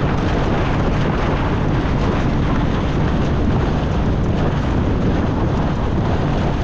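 Small boat running under way: a steady, loud rumble of motor and rushing water, with wind buffeting the microphone.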